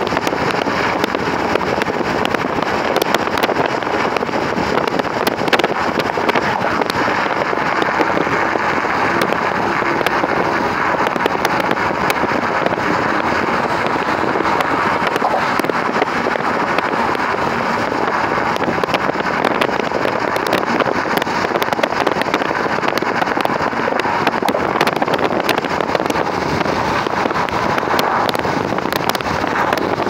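Loud, steady tyre and road noise from a car driving on a freeway connector ramp, heard inside the cabin, with faint scattered clicks through it.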